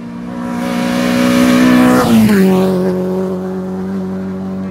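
A rally car at full throttle approaching and passing by, its engine note loudest and dropping in pitch as it goes past about two seconds in, then holding a steady lower note as it pulls away.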